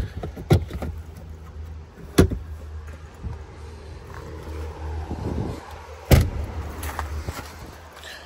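A few sharp knocks and thumps from handling the car's boot and its floor mats, the loudest about six seconds in, with some rustling just before it. A steady low hum runs underneath.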